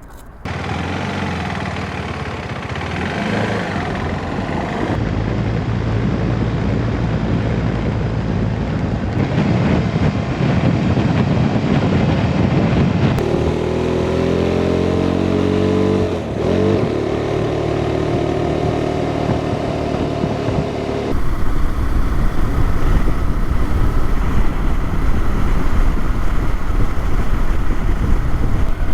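KTM 390 Adventure's single-cylinder engine running under way, mixed with wind noise. Around the middle the engine note climbs as it accelerates, with a brief dip, like a gear change, before it picks up again.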